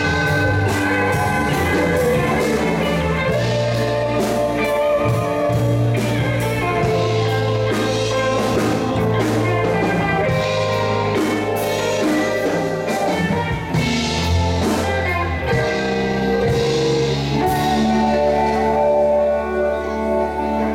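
Live band playing: electric guitars, bass guitar and keyboard, with drums keeping a steady beat.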